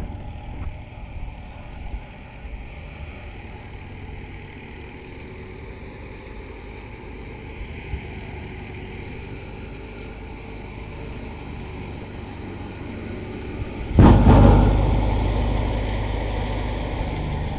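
Tractor-driven wheat thresher running with a steady low hum. Late on it suddenly gets much louder, then slowly eases off.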